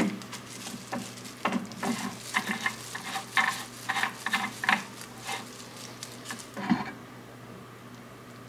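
Irregular clicks and scrapes of hands handling a resin 3D printer's build plate and freshly printed models, over a faint steady hum; the handling stops about seven seconds in.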